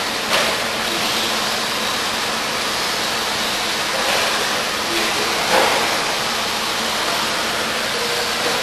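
Steady rushing noise of radio-controlled off-road buggies running on the track, with brief sharper clatters about a quarter second in and again around five and a half seconds in.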